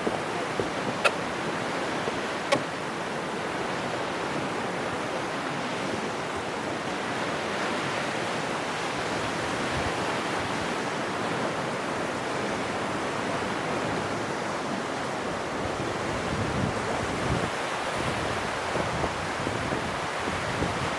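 A mountain river (the Bzyb) rushing steadily below a bridge, with two short clicks about a second in and again at two and a half seconds.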